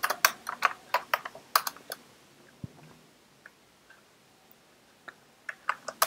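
Computer keyboard typing: a quick run of keystrokes in the first two seconds, one lone keystroke, a pause, then a few more keystrokes near the end.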